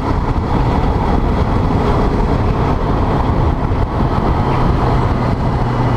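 Motorcycle riding at road speed in traffic: a steady rush of wind and road noise on the rider's microphone, over the running engine. A steady low hum comes up about four and a half seconds in.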